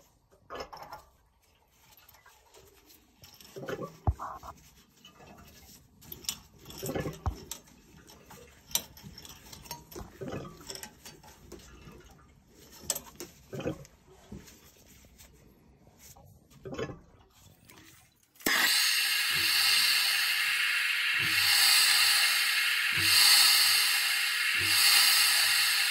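Scattered clicks, knocks and rubs of brass plumbing fittings being handled and fitted onto copper piping. About 18 seconds in, a plumber's torch comes on with a sudden, loud, steady hiss as it heats a copper fitting for soldering.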